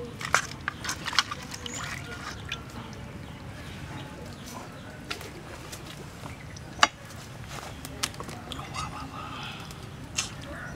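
Water sloshing and splashing as a pig's leg is washed by hand in a metal basin, with a cluster of sharp clicks early on, then a single loud sharp knock about seven seconds in as the leg and cleaver are handled at a wooden chopping block. Chickens call faintly in the background.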